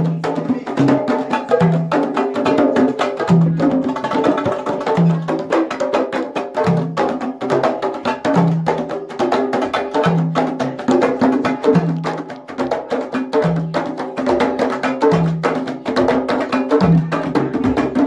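Hand drums played live by a group in a fast, dense rhythm of sharp slaps, with a deep stroke repeating about every 0.8 seconds.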